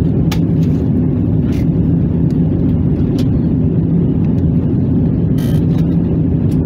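Steady low drone of an airliner cabin in flight: engine and airflow noise, with a few faint short clicks.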